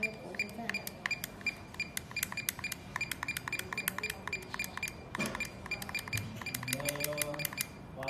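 Stainless-steel vandal-proof kiosk keypad buttons being pressed in quick succession: sharp metallic clicks, several a second, each with a short high ring. A dull knock comes about five seconds in.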